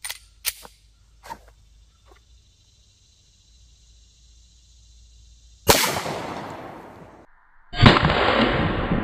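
9mm pistol shots: a few faint clicks at first, then a loud sharp report with a fading tail about two-thirds of the way in, and after a sudden cut a second loud report near the end. Each report has a long fading tail.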